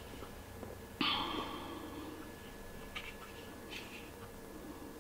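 Faint handling noise from a pleated blind's headrail and nylon cord: a short scratchy rustle about a second in, then a few light ticks.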